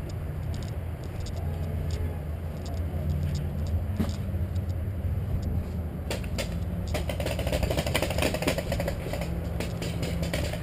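Low, steady rumble of movement and wind on a body-worn camera's microphone as a paintball player moves through tall grass. About seven seconds in, a dense run of rustling and clicking sets in and lasts about three seconds.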